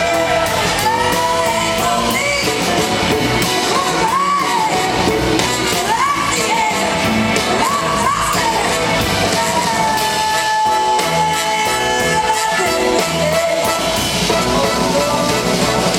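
Live band music: a woman sings the lead vocal, her voice sliding and bending through the melody, over electric guitars and drums, with the echo of a large hall.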